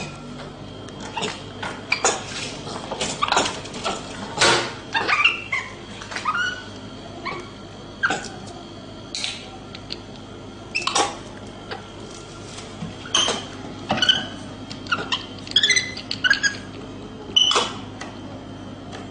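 Capuchin monkey giving many short high chirps and squeaks, irregularly spaced, with some sharp clicks among them.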